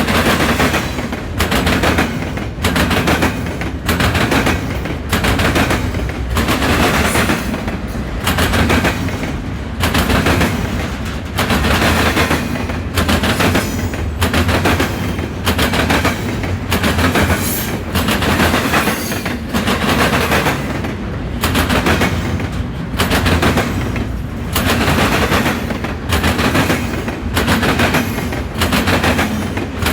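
Freight cars of an intermodal train hammering across a railroad diamond crossing: sharp bangs of wheels striking the crossing's gaps, coming in quick clusters about once a second over a steady rolling rumble.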